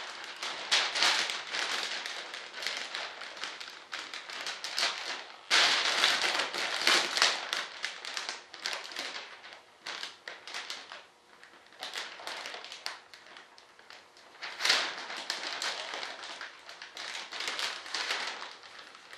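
Clear plastic vacuum-bagging film crinkling and crackling as hands work it along the edge of a foam wing. The rustle comes irregularly, loudest about five and a half seconds in and again in a sharp crackle near fifteen seconds.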